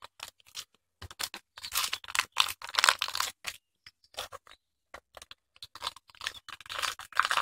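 Adhesive tape being pulled off the roll and pressed around a firework shell: ripping, scraping noises in two spells, one in the first half and one near the end.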